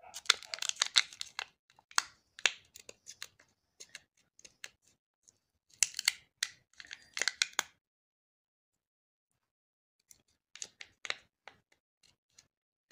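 Battery adhesive crackling and tearing as the battery of a Samsung Galaxy A20 is peeled out of its frame, the heavy glue softened with isopropyl alcohol, mixed with crinkling of the battery's foil wrap. Irregular small snaps and crinkles for most of the first eight seconds, a short pause, then a few more crackles.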